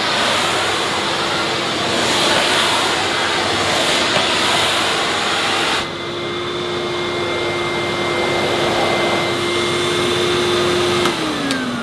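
Miele cylinder vacuum cleaner (1995, about 1,100–1,200 W) running at full power on carpet with a loud rushing noise. About halfway through, its suction is turned down: the rush drops away and a steadier motor whine is left. Near the end the motor winds down, its pitch falling.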